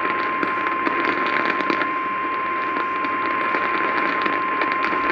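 NOAA Weather Radio 1050 Hz warning alarm tone: one steady, unbroken high tone over a heavy hiss of radio static with frequent crackles. The tone signals that a warning broadcast, here a severe thunderstorm warning, is about to follow.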